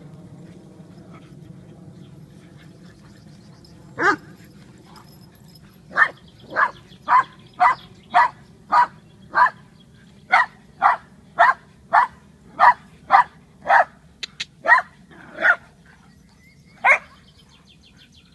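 A small dog barking in play: one bark about four seconds in, then a steady run of about two barks a second for some ten seconds, and one more near the end.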